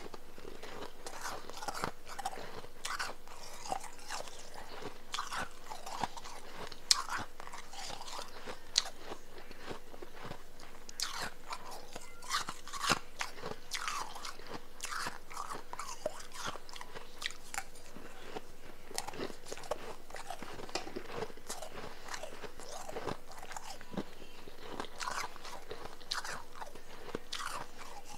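Close-miked chewing of powdery blended ice: a continuous, irregular crunching with now and then a sharper crunch.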